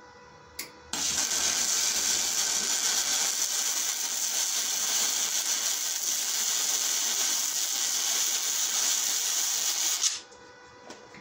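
Aluminum MIG weld with a spool gun on a ProStar 140 welder: a short click, then a steady hissing arc for about nine seconds that cuts off sharply near the end.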